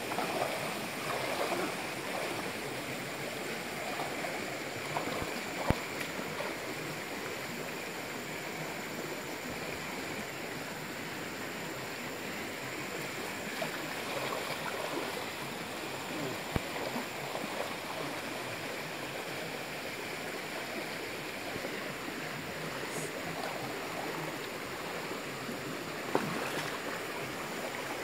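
Steady rush of a shallow rainforest stream, with a few sharp splashes or knocks from people wading through it.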